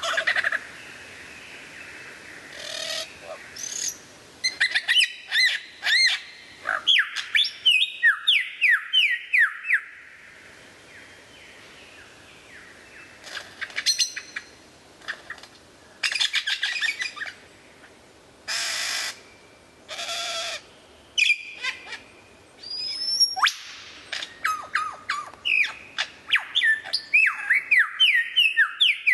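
Male superb lyrebird singing its varied mimicry song: runs of quick sweeping whistled notes, broken several times by harsh buzzy bursts about a second long.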